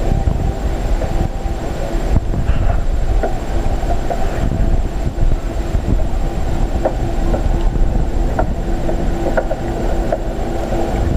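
Muffled underwater rumble from a camera submerged in a stingray touch tank, with a steady hum from the tank's water and equipment. A few faint clicks come through.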